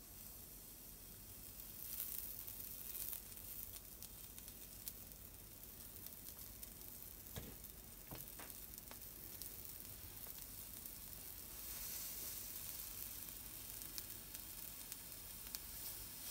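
Soy sauce sizzling in shiitake mushroom caps grilling on a mesh grill over a gas flame: a faint, steady sizzle with tiny crackles and pops, swelling a little about two seconds in and again in the last few seconds. A few faint knocks come about halfway through.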